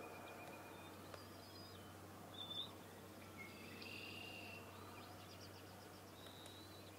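Faint bird chirps and short trills over a steady low hum and quiet outdoor background noise. The loudest is a brief chirp about two and a half seconds in, followed by a quick trill later.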